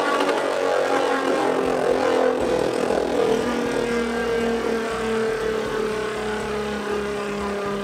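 Beyblade Burst spinning top on its jagged plastic Sp driver, whirring as it spins and circles across the plastic stadium floor, with a steady whine that slowly falls in pitch.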